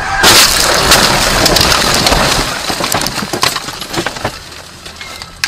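A car crashing off the road into bushes and trees, with branches scraping and the windscreen cracking: a sudden loud crash full of sharp cracks and snaps that lasts about three seconds and fades out by about four and a half seconds. A single sharp knock comes near the end.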